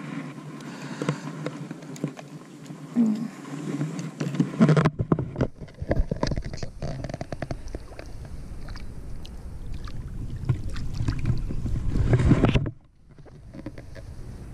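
Water sloshing and splashing at a boat's side as a largemouth bass is held at the surface and released, with many knocks and a low rumble from handling. The loud stretch of splashing and knocks starts about five seconds in and cuts off sharply near the end.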